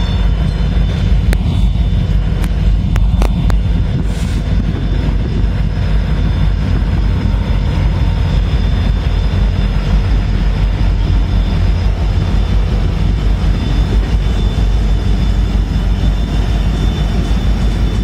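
Norfolk Southern diesel-electric freight locomotives, led by unit 6971, rolling past close by as the train pulls out, their engines giving a loud, steady low rumble. A few sharp clicks come in the first few seconds.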